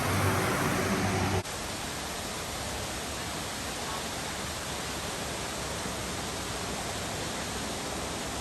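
Steady rushing roar of a waterfall, an even unbroken wash of falling water that begins abruptly about a second and a half in; before that, a low steady hum.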